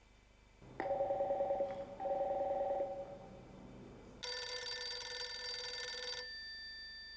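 A snom 320 desk phone rings with a warbling two-tone trill in two short bursts. About four seconds in, a mobile phone's bright, bell-like ringtone starts and rings on, fading. The two phones are ringing for the same incoming call under simultaneous ring (twinning).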